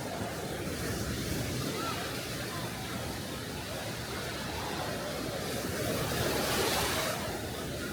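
Small sea waves breaking and washing up on a beach, one wash swelling louder about six seconds in.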